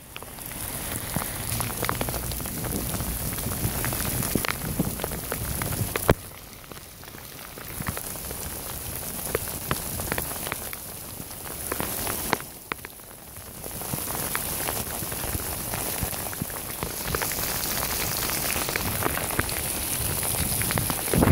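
Torrential rain beating down on a flooded street and pavement: a dense, steady patter with sharp clicks of single drops striking close by. It falls away briefly twice, about six and twelve seconds in.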